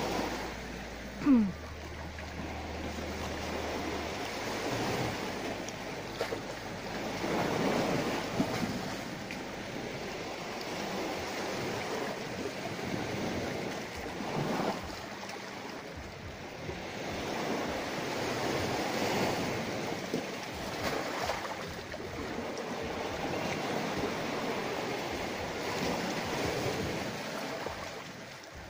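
Sea waves washing onto the shore, a steady rushing that swells and eases every few seconds. A short, loud sound falling in pitch comes about a second in.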